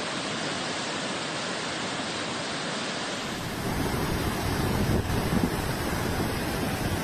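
A river in flood, its muddy water rushing in a steady, noisy torrent. About three seconds in, the sound grows louder and fuller, with more low rumble.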